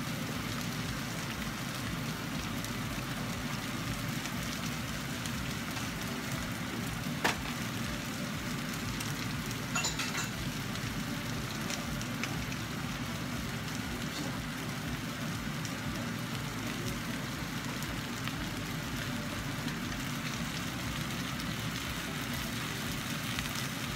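Chicken pieces in a brown sauce sizzling steadily in a nonstick saucepan on the stove, with a sharp click about seven seconds in and another short tick near ten seconds.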